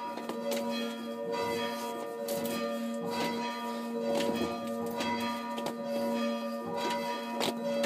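Three hand-rung church bells: the large bell swinging while the two smaller bells are chimed by rope-pulled clappers, ringing in repeated strokes about once a second over a steady hum of held bell tones.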